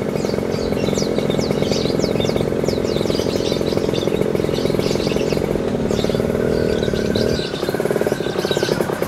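Small motorcycle engine running steadily at low speed, its note shifting in the second half. Birds chirp repeatedly over it.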